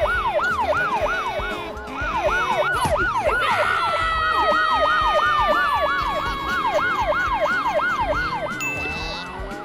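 Police siren in a fast yelp, its pitch sweeping up and down about three times a second, over background music.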